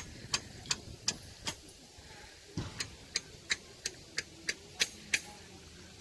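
A regular series of sharp, high ticking clicks, about three a second, in two runs with a short break around two seconds in.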